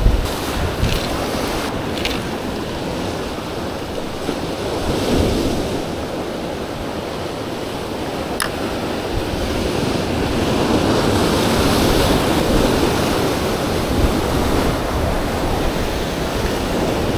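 Ocean waves surging and washing against the rocks below the cliffs, swelling and easing over several seconds, with wind on the microphone. A few light clicks come in the first couple of seconds.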